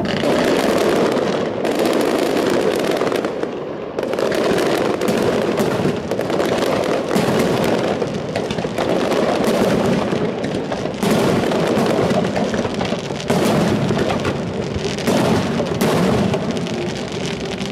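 Fireworks display: a continuous barrage of shell bursts and crackling, with fresh volleys breaking out every second or two.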